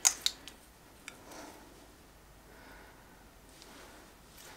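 A lipstick case being opened: a sharp click as the cap comes off, then a few small clicks of handling. After that comes a faint soft rubbing as the lipstick is swatched on the back of a hand.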